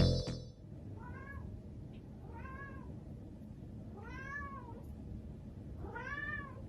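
Domestic cat meowing four times, a second or two apart, each meow rising and then falling in pitch.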